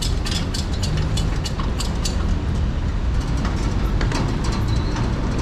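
Hand pallet jack loaded with a crated motorcycle rolling over concrete pavement: a steady rumble from its hard wheels, with frequent clacks and rattles.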